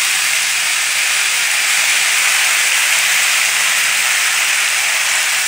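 Freshly added chopped tomatoes sizzling in hot mustard oil in a metal wok, a loud, steady hiss of water from the tomatoes hitting the oil.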